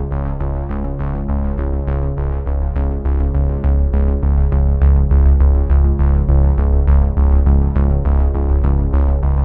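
Background music: sustained chords over a steady beat.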